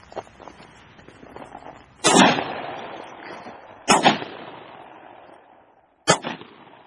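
Three shotgun shots, a couple of seconds apart, each loud report trailing off in a rolling echo.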